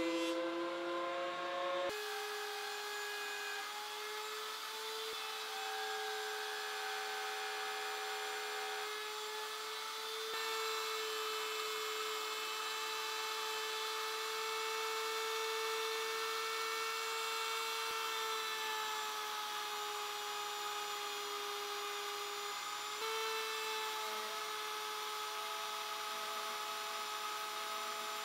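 Router running at high speed, a steady whine whose pitch drifts slightly as the bit cuts rabbets into the wood. The pitch changes abruptly about two seconds in.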